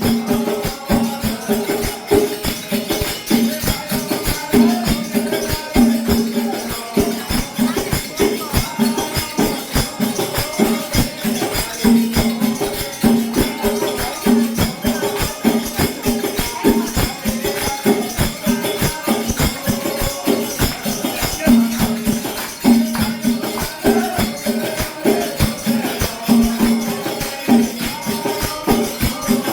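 Instrumental passage of a desi folk song: a fast, steady beat of drum strikes and jingling, shaker-like percussion under a repeating melody.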